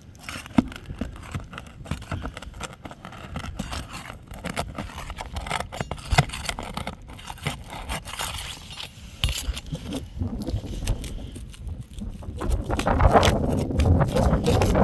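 A roof shingle being pried up to reach the nails beneath it: irregular scraping, clicks and crackling as the shingle is worked loose and its seal breaks, getting louder and busier near the end.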